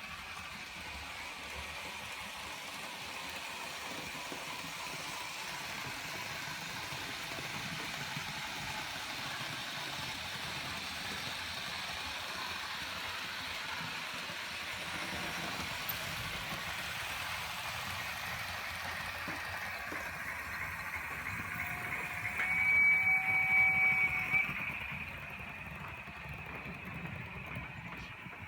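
Märklin H0 model of the Bavarian S 3/6 steam locomotive running on model track, its sound decoder playing steady running sound. About three-quarters of the way through, the decoder gives a loud, high brake squeal for about two seconds as the locomotive brakes, then the sound settles quieter.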